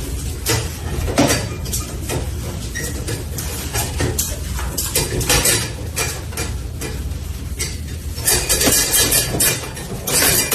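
Irregular clinking and clattering, many short knocks over a steady low hum, busiest near the end.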